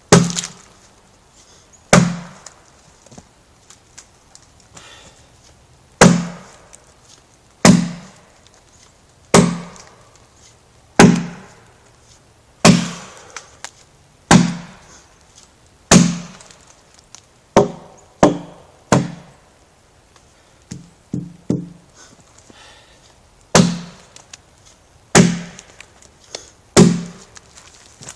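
Adze blade chopping into a red pine log while hewing it square: heavy, sharp strikes about every one and a half to two seconds, each with a short ringing tail. A little past two-thirds through comes a run of quicker, lighter strikes.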